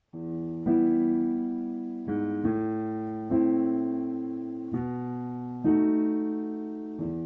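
A keyboard with a piano sound playing slow chords, each struck and left to ring and fade, as the instrumental intro of a slow love song. It starts out of silence right at the beginning.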